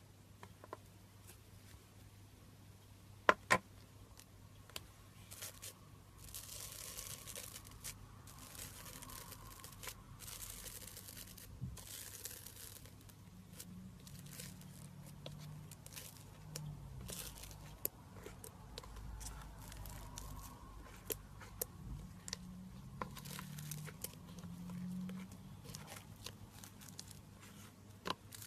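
Slime being worked by hand: sticky crackling, clicking and tearing sounds, with many small pops spread through.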